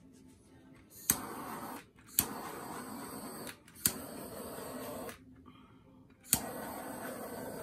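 Handheld butane torch fired in four bursts, each starting with a sharp click as it lights and followed by a steady hiss of the flame; the last burst is still going at the end.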